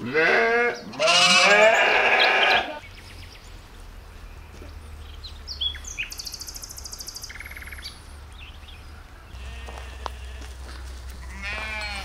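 Lambs bleating: two or three loud, wavering bleats in the first few seconds, then a quieter stretch with a low rumble and faint high chirps, and another bleat near the end.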